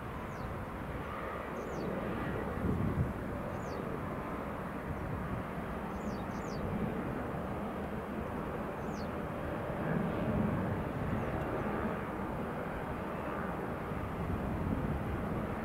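Airbus A321 airliner's jet engines: a steady roar that swells and eases, with faint high chirps falling in pitch every second or two.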